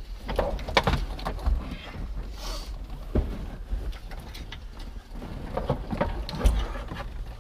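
Irregular knocks, clunks and scrapes of an aluminium dashboard carrier assembly being manoeuvred into place inside a car, with a few sharper knocks.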